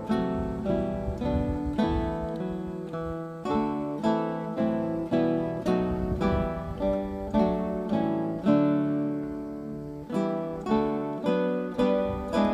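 Background music: acoustic guitar playing a plucked, picked melody with steady note attacks.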